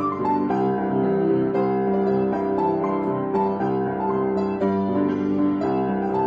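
Instrumental piano music, with notes and chords ringing on over one another.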